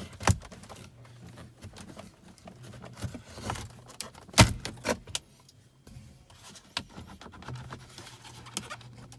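Plastic dash side-vent trim being pried loose with a plastic pry tool: scattered clicks and knocks of plastic clips and trim, the loudest about four and a half seconds in.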